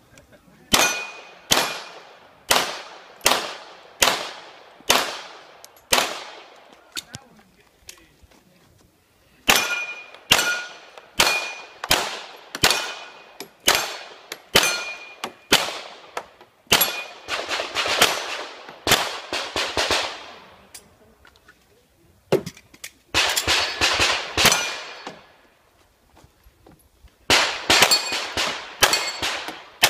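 Handgun shots fired in quick strings of about two a second, broken by short pauses, each crack trailing off in a ringing echo. Several shots carry a brief high metallic ring.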